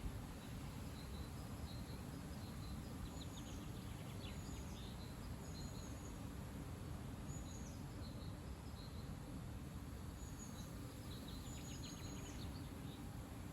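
Wind rumbling steadily on the microphone, with small birds chirping in two short flurries of high calls, a few seconds in and again near the end.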